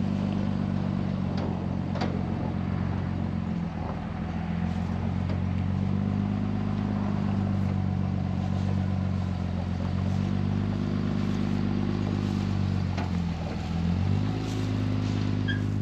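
A motor vehicle engine running steadily, its revs dipping and picking back up several times.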